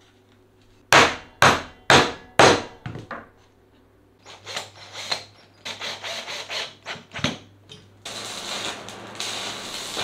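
Four sharp knocks about half a second apart, then a run of lighter, irregular knocks and scrapes as metal and plastic parts are fitted. About eight seconds in, an electric welding arc starts a steady crackling hiss.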